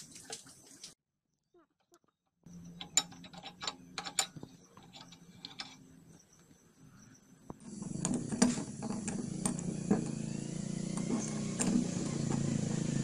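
Light metal clicks and knocks of compressor pump parts being handled and fitted, over a faint steady hum. About halfway a louder steady noise with a low hum comes in, with more clicks over it.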